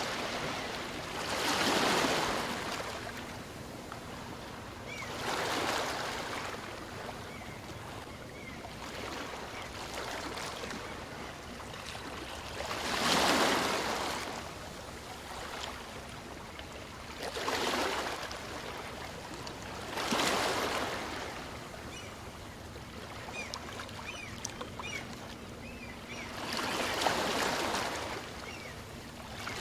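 Small waves on a calm sea washing onto a beach, about six surges that swell and fade over the steady hiss of water.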